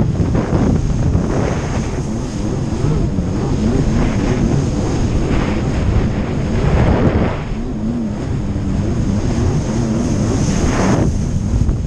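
Jet ski engine running at speed, its pitch wavering up and down, with wind buffeting the microphone and several short splashes of water.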